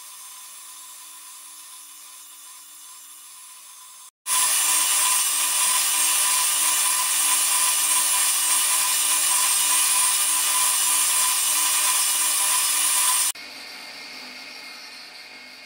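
Homemade surface grinder's wheel grinding the underside of a cast iron lathe carriage gib: a steady, high-pitched grinding hiss. It starts abruptly about four seconds in and stops abruptly near the end, with the machine running more quietly before and after.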